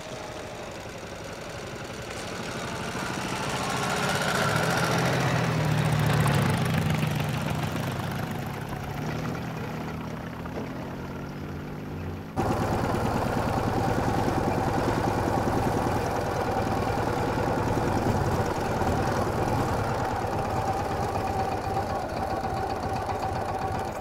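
Dnepr sidecar motorcycle's flat-twin engine running as the bike rides past, swelling to its loudest about six seconds in and easing off. About halfway through it jumps abruptly to a louder, steady engine run that lasts to the end.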